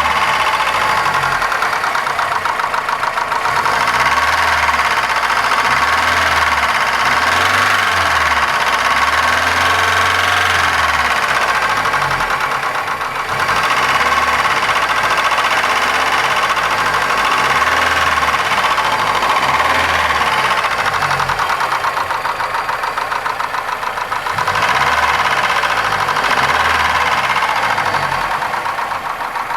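Opel Astra's 1.6 X16SZR four-cylinder petrol engine running with a fast, regular metallic knock coming from inside the engine, a knock whose cause the owner does not know.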